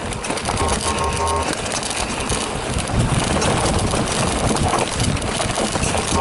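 Mountain bike rattling and knocking over a rough forest trail, with wind rushing over the microphone. A steady mechanical buzz sounds through the first second and a half, then gives way to the rattle.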